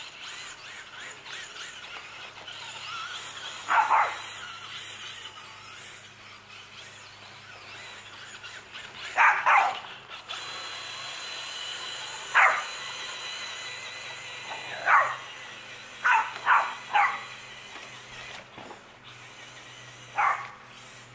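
A small dog barking in short, sharp barks, about nine in all: one, a pair, one, one, a quick run of three, then one more near the end. Under the barks runs the steady, wavering whine of a Traxxas Slash RC car's brushless electric motor.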